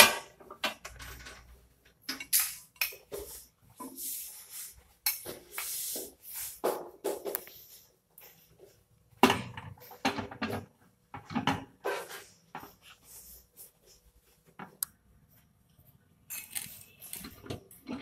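Roller ring and glass turntable plate of an IFB 17 L solo microwave oven being fitted into the cavity: irregular clicks, knocks and scrapes of the ring on the oven floor, then the glass plate clinking as it is set down and settled onto the drive coupler.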